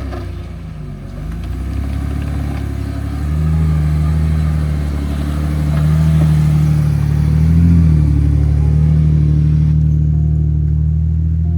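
Four-wheel-drive vehicle's engine running under load; it gets louder and revs higher about three seconds in and holds there, with a brief rise near eight seconds.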